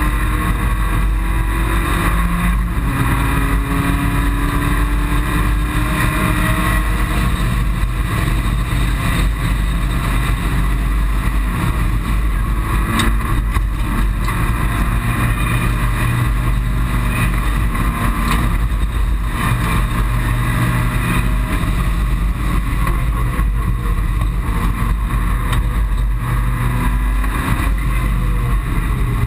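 Mitsubishi Colt rally car's engine heard from inside the cabin at racing speed, its pitch climbing as it pulls through the gears, over constant road and tyre rumble. Near the end the revs fall away as the car slows.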